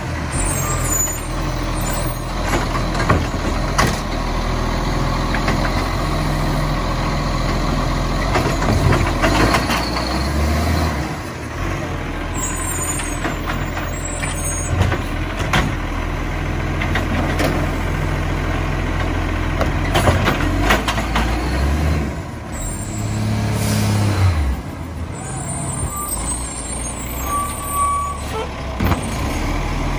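Iveco Acco side-loader garbage truck's diesel engine running steadily, revving up twice, with short hisses of air.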